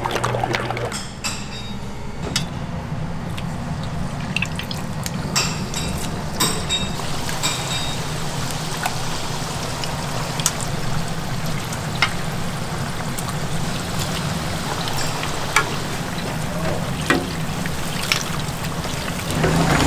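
Chicken deep-frying in hot oil: a steady bubbling sizzle with scattered sharp clicks of utensils over a steady low hum.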